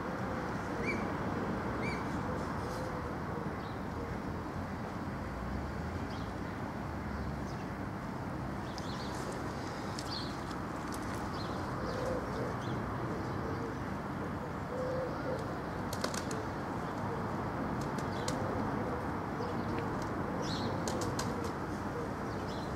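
Otters chewing on a squirrel carcass, with scattered sharp clicks and crunches, thickest about nine to eleven seconds in, once at sixteen seconds and again around twenty seconds. A steady rushing outdoor background noise runs underneath, along with a faint low wavering coo of a pigeon.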